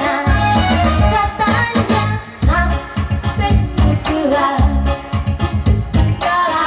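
A song: a singing voice over backing music with a steady low beat.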